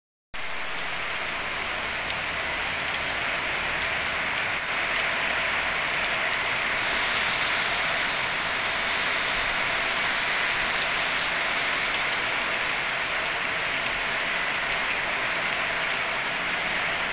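Heavy rain pouring onto a wet paved road, a dense, steady hiss.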